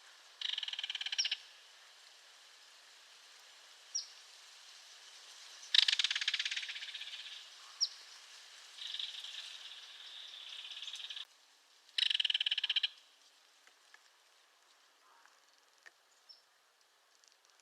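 Belted kingfisher giving its dry, rapid rattle call in four separate bursts, the loudest about six seconds in and the longest lasting a couple of seconds.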